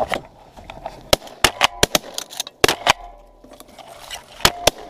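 An irregular run of about a dozen sharp clicks and knocks: handling noise as the camera is moved and pushed in among dry reed stems.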